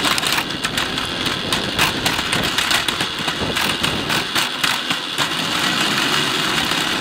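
Rotax 125 Mini Max two-stroke kart engine running at low revs while the kart rolls slowly, heard close up from a camera mounted on the kart, with many irregular short rattles and knocks.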